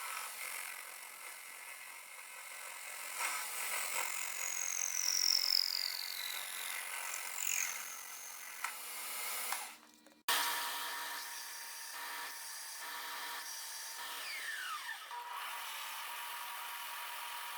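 TIG welding arc hissing and buzzing as metal is built up bead on bead, with a few falling pitch slides. It cuts off about ten seconds in and starts again at once.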